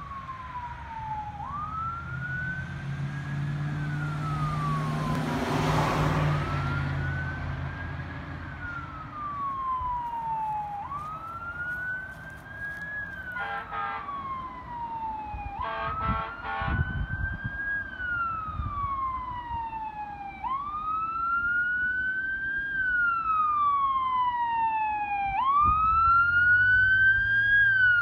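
Ambulance electronic siren on wail, each cycle rising quickly and falling slowly about every five seconds, growing louder as the ambulance approaches. A car passes about six seconds in, and a few short horn blasts sound midway.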